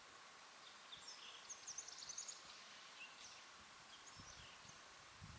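Quiet outdoor ambience with faint, high, quick bird chirps clustered a second or two in and a few more scattered later, over a faint steady hum; a couple of soft low thumps near the end.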